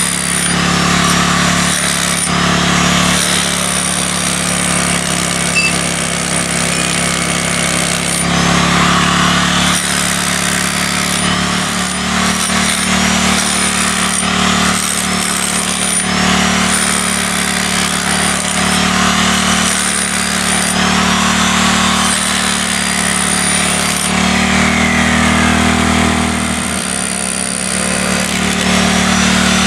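Corded electric hammer drill running almost without pause, hammering into concrete.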